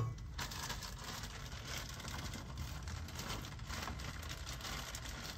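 Plastic bag of frozen vegetables crinkling as it is shaken out, with the frozen pieces pattering into a pot of hot liquid.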